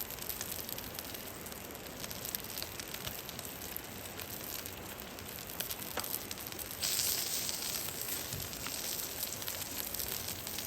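Beef short rib sizzling on a grill over a wood fire in a fire pit, with a steady hiss, fine crackles and small pops from the spitting fat. The hiss grows louder about seven seconds in.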